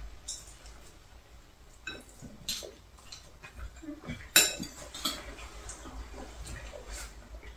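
Chopsticks, spoons and a small fork tapping and scraping against bowls: irregular light clicks, the sharpest about four and a half seconds in.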